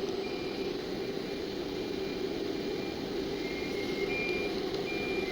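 Steady machinery hum with a short, faint high beep repeating about every half second to second.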